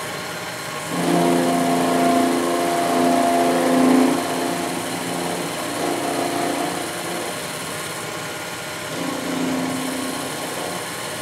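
Sherline 4400 benchtop mill running with a quarter-inch end mill cutting across the top of an aluminum block, smoothing a rough hacksaw-cut surface. A humming cutting tone comes in about a second in, wavers as the work is fed, eases off around seven seconds and returns briefly near nine seconds.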